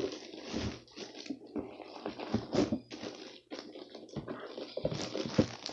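Irregular handling noise at close range: scattered knocks, scrapes and rustling as objects are moved and set down.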